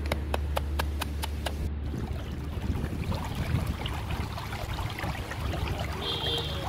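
Wooden pestle pounding a spice paste in a wooden mortar, about four or five strokes a second. It stops abruptly just under two seconds in, giving way to a shallow stream running over pebbles.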